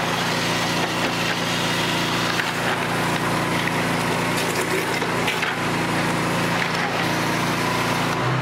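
Pressure-washer-driven mud sucker drawing sludge, sand and gravel from a bucket up its suction tube: a steady pressure washer hum under a loud rush of water, with a constant crackle of stones rattling through the pipe. A couple of bigger stones are catching in it and slowing the suction.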